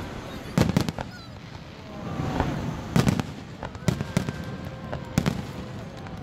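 Fireworks shells bursting in the air: a run of sharp bangs, some in quick pairs, a second or two apart.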